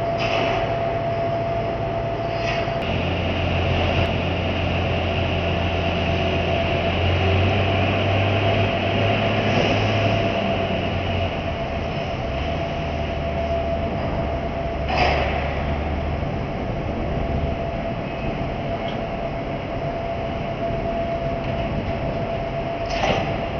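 Steady machinery rumble of a ro-ro freight ship's engines running alongside the quay, with a constant hum and a deep drone that steps up and down in pitch a few times.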